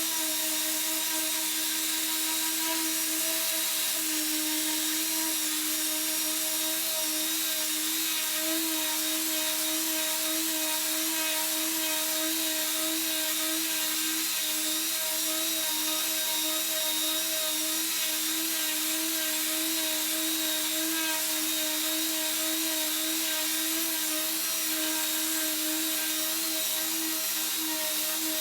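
Electric power tool running steadily: a constant whine with a slight warble, over a hiss.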